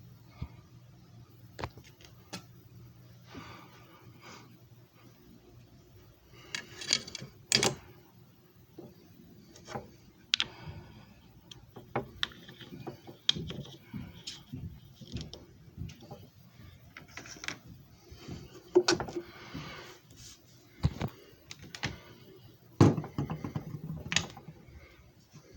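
Irregular clicks, knocks and thunks of hands handling a disc repair machine and discs, with a faint low hum under the first few seconds.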